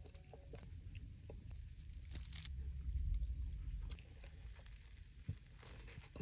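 Close-mic chewing of a bite of fried calamari wrapped in pita, with a brief crisp crunch about two seconds in.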